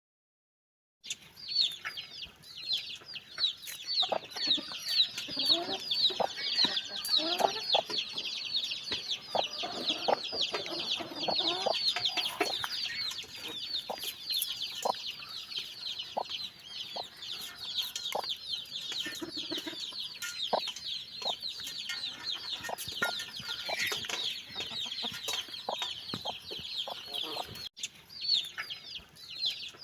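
A brood of baby chicks peeping, many high, falling peeps overlapping without pause, starting about a second in. Lower calls mix in between about 4 and 12 seconds, with scattered sharp clicks throughout.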